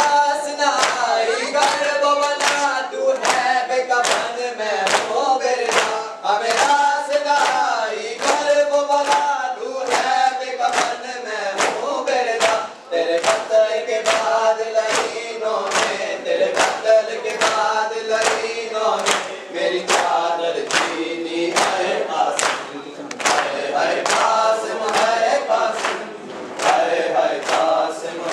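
Men's voices singing an Urdu noha (mourning lament) together, over the steady rhythmic slaps of many hands beating on chests in matam.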